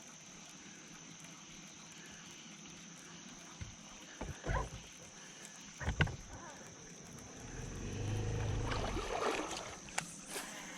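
Knocks on a fishing boat about four and six seconds in, then a small motor hums low for about two seconds, with sharp clicks near the end. A steady high insect drone runs underneath.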